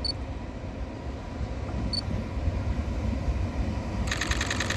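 Passenger train rumbling low and steady. Two short high beeps, one at the start and one about two seconds in. Near the end a high, rapidly pulsing sound with several tones sets in.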